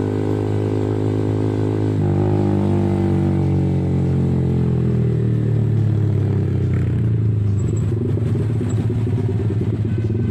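Yamaha R15 V3's 155cc single-cylinder engine through an aftermarket R9 racing exhaust, heard from the rider's seat. The exhaust note shifts about two seconds in, then falls slowly as the bike rolls off and slows, and turns rough and choppy near the end.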